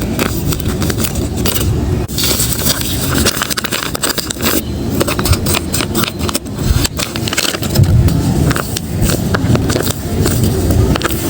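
Paper blind-bag packaging being handled and opened close to the microphone: continuous paper crinkling and rustling with many small crackles and scrapes.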